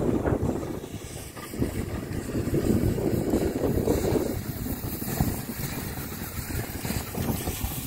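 Heritage railway carriages rolling past on the track, a steady low rumble with wind buffeting the microphone, swelling twice.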